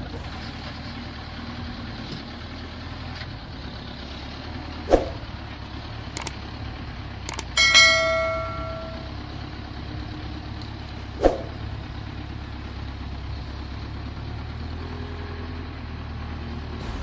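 A motor running steadily at low revs, with two sharp knocks and, about eight seconds in, a loud metallic clang that rings on for about a second.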